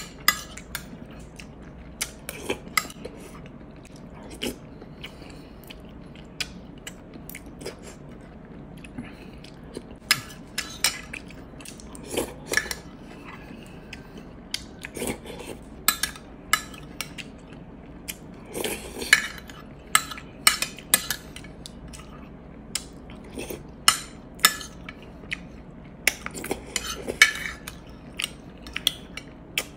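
Metal spoon clinking and scraping against a glass baking dish as misua noodle soup is scooped up, with chewing in between. The clicks come irregularly, sometimes several in quick succession.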